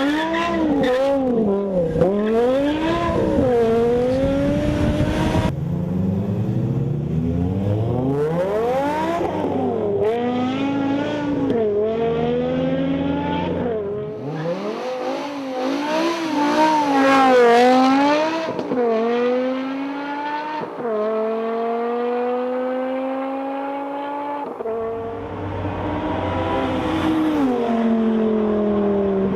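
BMW M6's 5.0-litre V10 through a Meisterschaft exhaust, first blipped up and down in several quick revs, then pulled through the gears under acceleration. The pitch climbs steadily and drops sharply at each shift, about five times.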